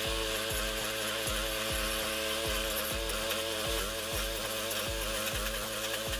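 Gas-engine walk-behind stump grinder running steadily, its cutting wheel chewing into a tree stump and throwing out wood chips.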